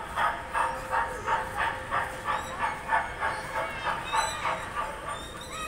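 Electric kiddie ride train's loudspeaker playing a steam-locomotive chugging sound effect, an even run of about three chuffs a second that stops near the end.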